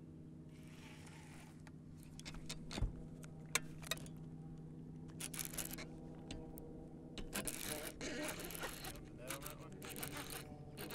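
Fishing reel being cranked hard while a hooked bass is fought on a bent rod: a few sharp knocks and clicks, then bursts of rasping reel and line noise over a steady low hum.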